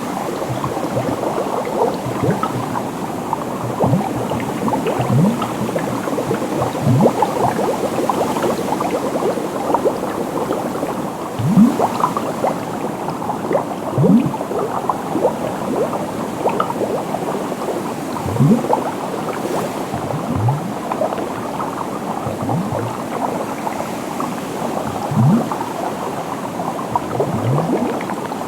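Continuous bubbling water: a dense stream of small bubbles, with a larger, lower bubble gurgling up every couple of seconds, each one quickly rising in pitch.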